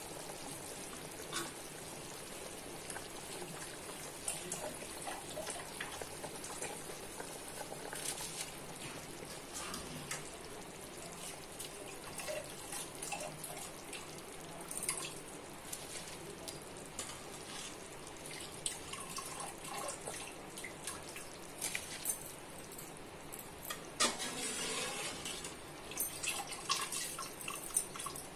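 Spiced broth boiling in a large pot, bubbling with scattered small plops and clicks as raw rice is tipped in; the clicks are busier near the end.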